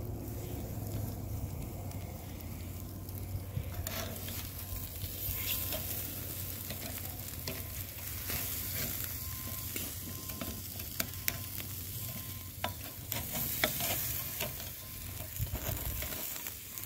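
Chicken thighs sizzling on the grate of a charcoal kettle grill, with scattered clicks and scrapes of metal tongs on the grate as the pieces are turned over.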